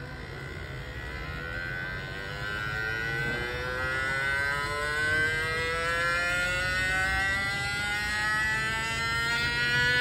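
Small DC motor pressed against a plastic controller case, buzzing it as it runs, its whine rising steadily in pitch and getting louder as the PWM speed controller slowly ramps the motor up to speed.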